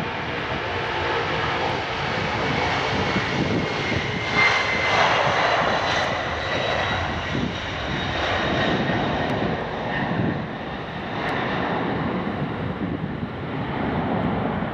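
Boeing 767 freighter's twin jet engines at takeoff thrust, through the takeoff roll, lift-off and climb-out. It is a loud, steady roar with a high whine running through it, loudest about four to six seconds in.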